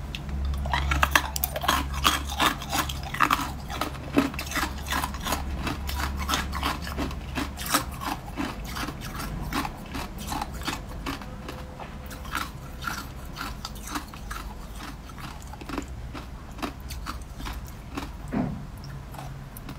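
Ice crunching and crackling: a dense, irregular run of sharp clicks and cracks. Under it a steady low hum stops about eight seconds in.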